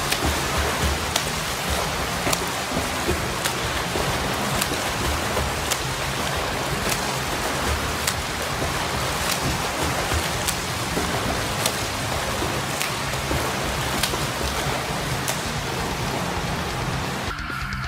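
Continuous splashing and churning of pool water from a swimmer doing freestyle, over background music with a steady tick about once a second. The splashing drops away near the end, leaving the music.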